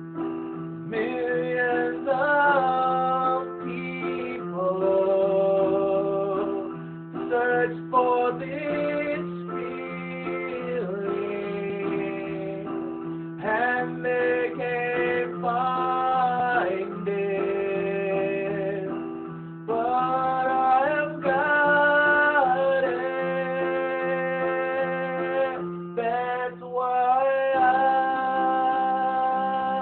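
Music: piano with held low notes, and a voice singing a melody over it.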